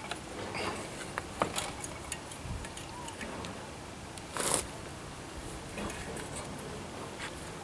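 Light clicks and ticks of thin steel lockwire being handled and twisted through the drilled heads of a two-stroke engine's silencer bolts, with one brief louder scrape about four and a half seconds in.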